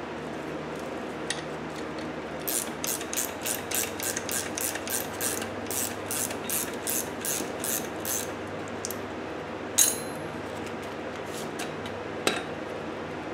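A hand ratchet wrench clicking in quick back-and-forth strokes, about three a second, while the top-mount nut on a coilover is tightened. It is followed by two sharp metallic clacks, the first the loudest.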